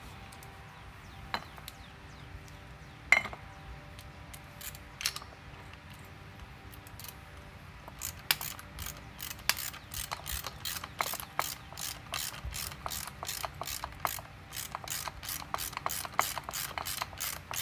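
Socket ratchet wrench clicking at about four clicks a second, starting about halfway through, as it turns the nut on the top mount of a rear shock absorber being reassembled with a lowering spring. Before that, a few separate metal knocks, the sharpest about three seconds in.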